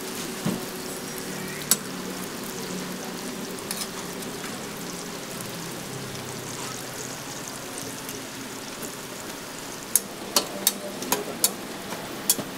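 Ramly burger patties, buns and sliced onions sizzling steadily on a flat steel griddle. Sharp metal clicks of tongs against the griddle, a few near the start and a quick run of them about ten seconds in.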